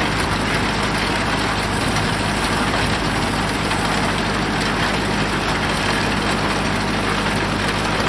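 Foley Belsaw circular sawmill running steadily, its power unit and spinning blade making a constant hum while the blade turns free, before it meets the log.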